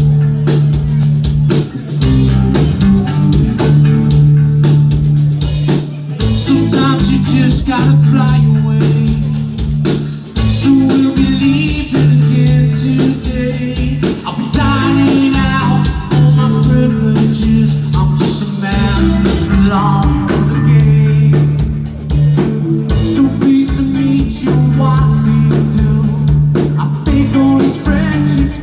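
A rock band playing live and loud, with a driving bass line, a drum kit and guitar.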